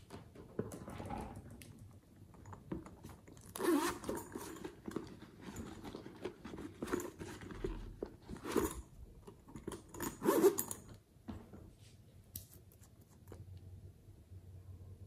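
Hands handling hard plastic slime containers and tools: irregular clicks, knocks and crackly scraping, with the sharpest clicks a few seconds apart in the middle.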